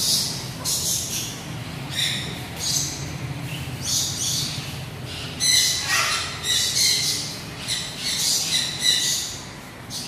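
Parrots chirping and squawking over and over in short, shrill calls, one call sliding downward about six seconds in. A low steady hum runs underneath.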